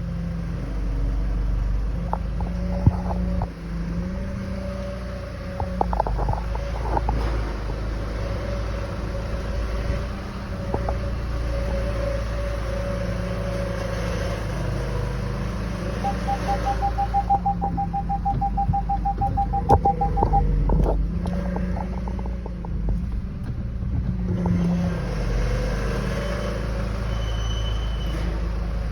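Land Rover Freelander 2 TD4 moving with a grinding, rubbing noise from the front driver's-side corner over a steady low rumble; the cause is undiagnosed. A rapid run of beeps sounds for about four seconds midway.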